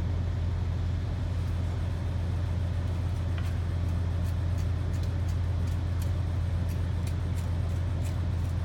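Steady low machine hum, unchanging, with a few faint light clicks now and then.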